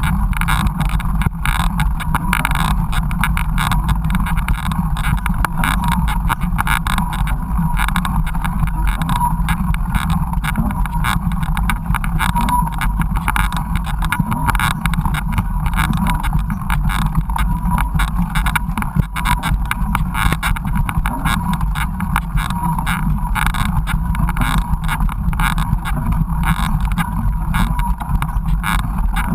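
Steady, muffled rumble of a mountain bike ride on a rough trail, with constant rattling and knocking.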